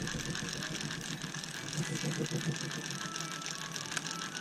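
Fishing reel being cranked to bring in a hooked fish, a steady mechanical whirring and clicking.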